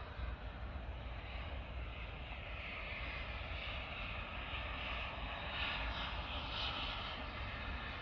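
Distant steam locomotive approaching, heard as a steady rumble and hiss that swells slightly from about three seconds in.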